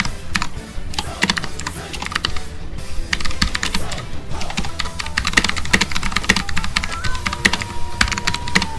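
Typing on a Rapoo V500Pro mechanical keyboard with clicky blue switches: keystrokes clatter in quick flurries of several clicks a second.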